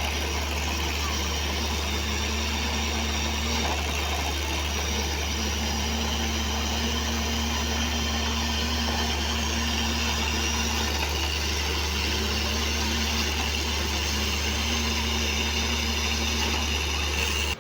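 Borewell drilling rig's engine running steadily with a deep, even drone.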